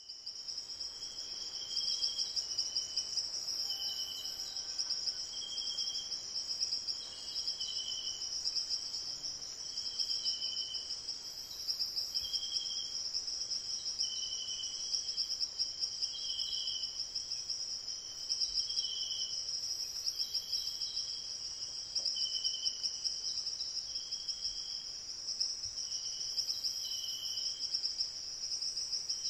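Chorus of insects such as crickets: a dense, steady high trill, with shorter chirps from another insect repeating about once a second.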